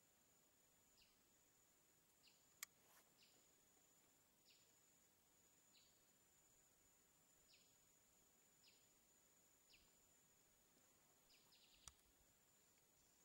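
Near silence: faint short chirps repeating roughly once a second over a steady faint high whine, with two sharp clicks, about two and a half seconds in and near the end.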